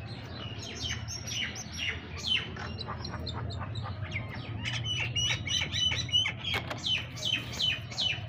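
Small birds chirping: short, quick, downward-sliding chirps, coming several a second in the second half, over a steady low hum.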